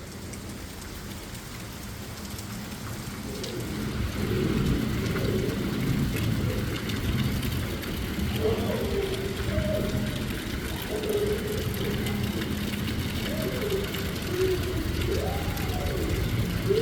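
Rain falling steadily, growing louder over the first few seconds. A voice rising and falling in pitch joins in the background a few seconds in.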